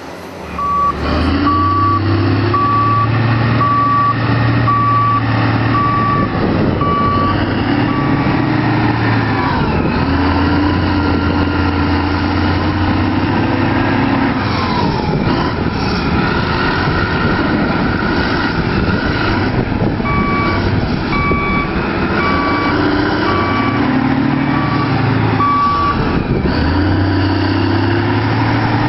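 Heavy diesel construction machinery running under changing load, with a reversing alarm beeping about once every 0.8 seconds for several seconds near the start and again later.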